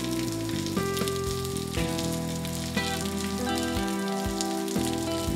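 Steady rain, a dense patter of tiny crackling drops, over slow, soft instrumental music whose held notes change every half second or so.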